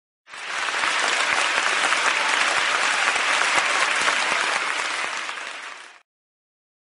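Crowd applauding, a stock sound effect. It starts abruptly, holds steady for about five seconds, then fades and cuts off.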